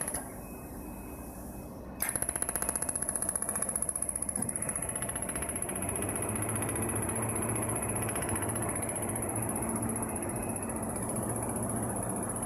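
Pulsed laser welding machine firing, a rapid train of sharp clicks that starts about two seconds in, over a steady high-pitched whine and a low hum.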